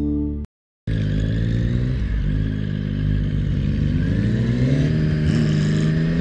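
Intro music cuts off about half a second in, and after a brief dropout a Yamaha MT-09's inline three-cylinder engine is heard running under way, its pitch climbing as the bike accelerates around the middle, over steady road and wind noise.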